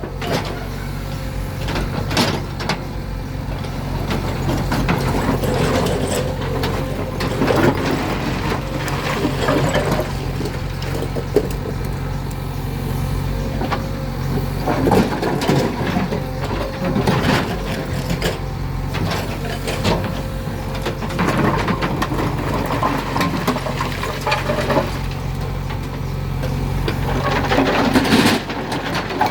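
JCB 3DX backhoe loader's 49 hp diesel engine running steadily while it loads big stones, with irregular knocks and scraping of rock throughout.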